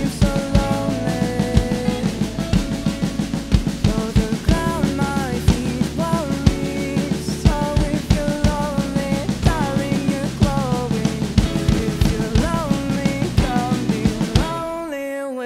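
Acoustic drum kit played along to a recorded rock song: a steady beat of kick drum, snare and cymbals over the song's melody. Near the end the drum beat stops while the song's last notes carry on.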